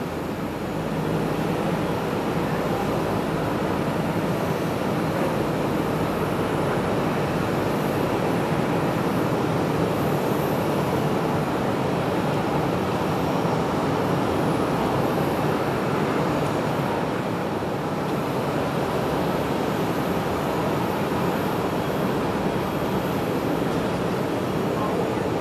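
Steady, muffled airport rumble and hiss heard from behind terminal glass, with no distinct events.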